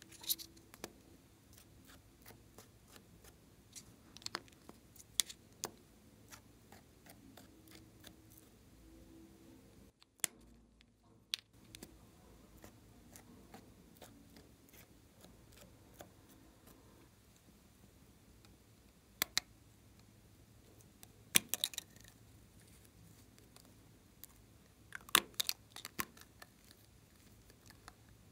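Scattered sharp clicks and taps of small plastic cosmetic cases and caps being opened and handled, with a few louder quick clusters of clicks in the second half, over a faint low hum.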